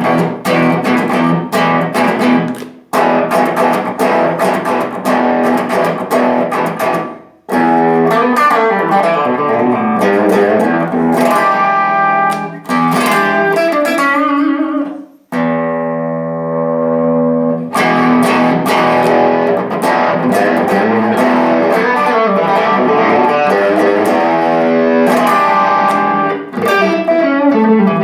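Electric guitar played through a Boss ME-20 multi-effects pedal set to overdrive: chords and riffs with short breaks, one long held chord about halfway, and a run of notes falling in pitch near the end.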